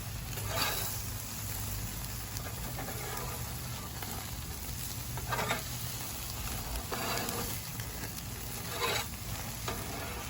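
Chicken sizzling on a charcoal grill: a steady hiss, with four short louder spurts of sizzle.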